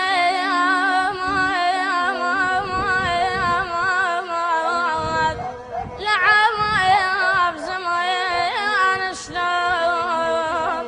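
A child singing a sad Iraqi song in long, ornamented lines with a wavering pitch, breaking off briefly about halfway through before going on.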